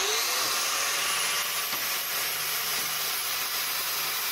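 Angle grinder grinding the edge of a steel axle truss plate, trimming metal off for fit: a loud, steady grinding hiss of the disc on steel. Its motor whine rises briefly as it comes up to speed at the start.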